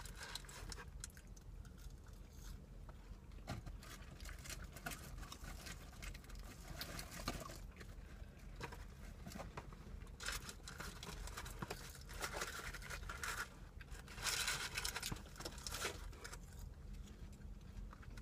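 Fast-food wrapping paper and packaging rustling and crinkling as burgers and fries are handled and eaten, with scattered small taps and clicks. A louder stretch of crinkling comes about fourteen seconds in.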